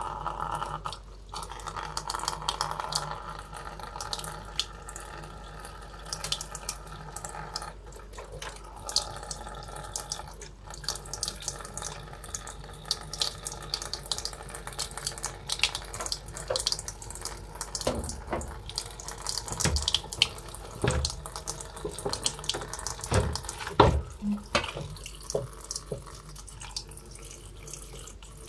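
Tap water running into a plastic basin while Malabar spinach leaves are washed by hand, with splashing as the leaves are lifted and turned. A few dull knocks come in the second half.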